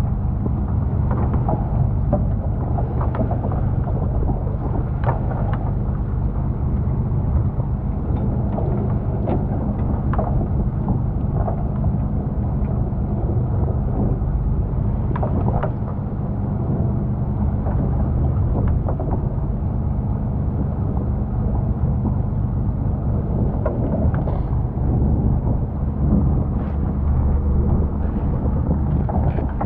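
Fishing boat's engine running steadily at a low hum, with wind on the microphone and occasional knocks and clatter on deck.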